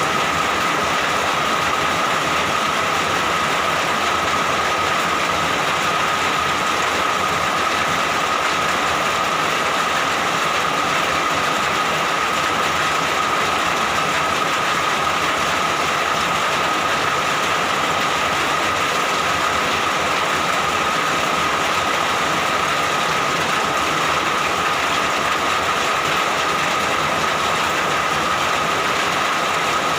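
Steady heavy rain, a continuous even hiss with no let-up, with a steady high tone running through it.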